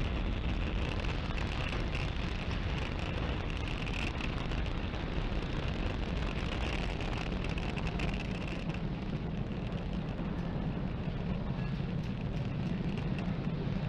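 Falcon 9 first stage's nine Merlin engines firing at liftoff thrust as the rocket climbs, a steady rushing rumble of rocket exhaust. About nine seconds in the high hiss fades and a deeper rumble grows.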